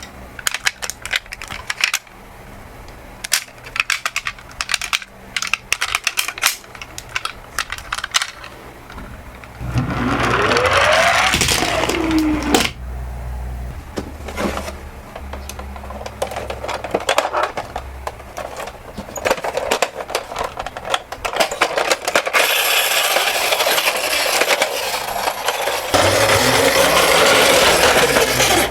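Die-cast toy minicars (ambulances and buses) clicking, clattering and rolling down a slope: scattered sharp clacks, a rushing roll about a third of the way in whose pitch rises then falls, and a longer loud rattling run over the last quarter.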